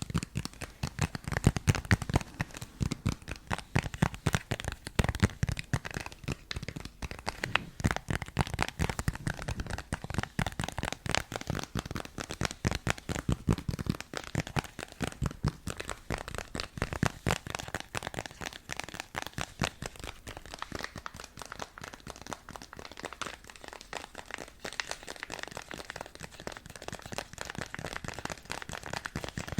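Fast, continuous tapping on a hard object, many clicks a second in an uneven flurry. The taps are heaviest in the first half and lighter later on.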